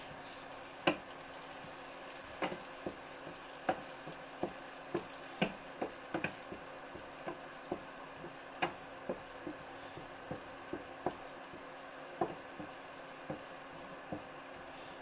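Food sizzling in a frying pan while a spatula stirs it, knocking against the pan in sharp irregular taps about one or two a second.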